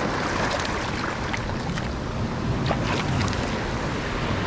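Sea surf washing in over and around shoreline rocks, a steady rush of moving water, with wind buffeting the microphone.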